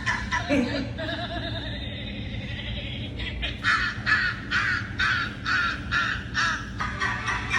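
A crow-like cawing call, about seven harsh caws in a row at roughly two a second, starting about three and a half seconds in, after a fainter wavering tone.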